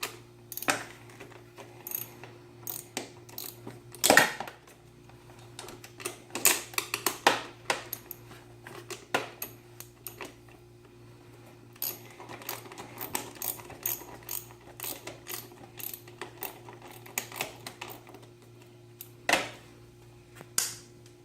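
Socket ratchet on a 10 mm socket clicking in short irregular runs, with sharper metal knocks and clinks from the tool, the loudest about 4 seconds in, as the brake lever's pivot nut is worked loose.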